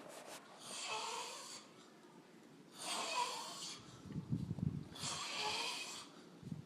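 A sleeping man snoring: breathy snores come about every two seconds, with one low, rattling snore in the middle.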